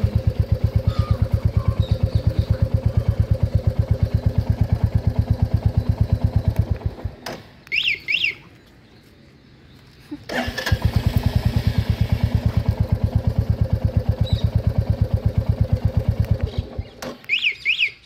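Royal Enfield Classic 350's single-cylinder engine idling with an even pulse, then cut off about seven seconds in, followed by two quick rising-and-falling chirps from the remote alarm kit's siren. About ten seconds in the engine is started again from the remote and idles, then is shut off near the end with another double chirp.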